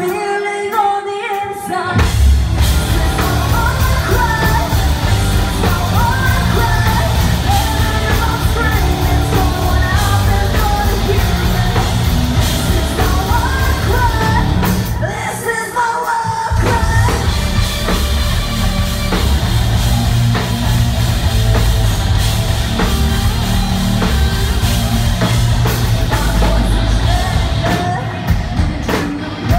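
Live rock band with a female lead singer: electric guitars, bass and drums under her voice. She sings alone for about the first two seconds before the full band comes in, and the band drops out briefly about halfway through before coming back.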